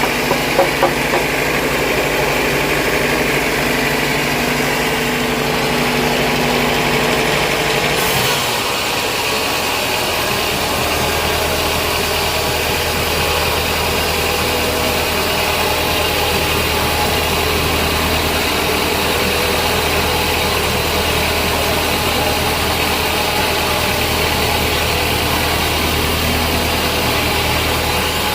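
Sawmill machinery running steadily, a continuous mechanical hum. About eight seconds in, the sound changes abruptly to a deeper, steadier hum.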